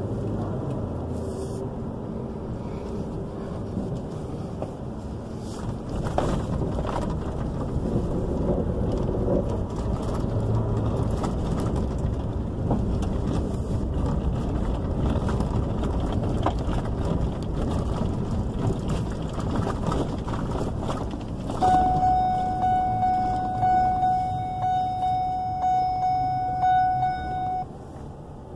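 Truck driving along a paved and then gravel road, heard from inside the cab: a steady engine and tyre rumble with gravel crackling under the tyres. About three quarters of the way through, a loud, steady high-pitched tone with overtones sounds for about six seconds and then cuts off suddenly.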